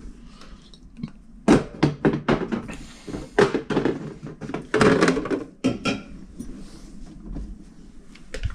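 Knocks and clatter of household things being handled, like cupboard doors and dishes. A run of sharp knocks comes between about one and a half and six seconds in, then it goes quieter.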